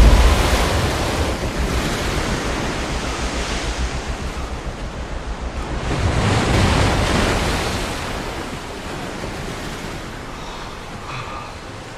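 Ocean surf breaking on a rocky shore, with wind. The rush swells again about six seconds in, then slowly dies away.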